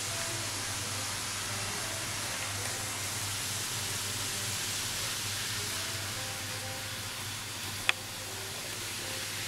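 Model trains running on the layout: a steady hiss with a low hum and faint shifting whines, and one sharp click near the end.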